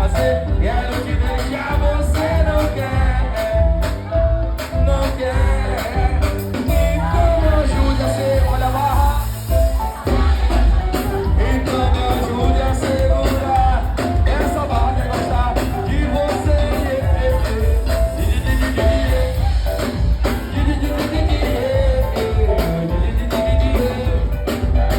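A band playing a cover song: a singer over heavy, pulsing bass and a steady drum beat.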